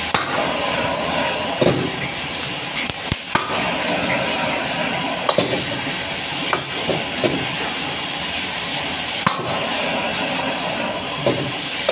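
Rice vermicelli and vegetables stir-frying in a wok: a steady sizzle and hiss, with metal utensils scraping and knocking against the wok every second or so.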